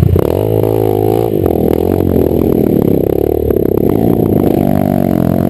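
Dirt bike engine revving up and down over and over as it climbs a rutted trail, with frequent knocks and rattles mixed in.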